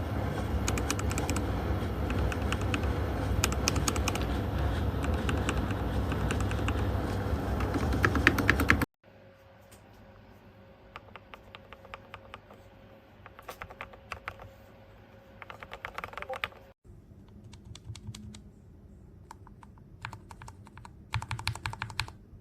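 Mechanical keyboard fitted with factory-lubed Gateron Pro Milky Yellow linear switches being typed on. Fast, dense keystrokes run loud for about nine seconds, then cut off suddenly; after that come quieter, scattered bursts of typing.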